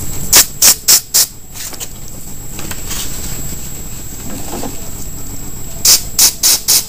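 Aerosol spray paint can sprayed in short hissing bursts: four quick ones near the start and another four near the end, over a steady background rush.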